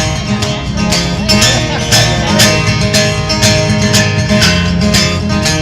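Instrumental passage of an upbeat country song: acoustic guitar over a steady drum beat.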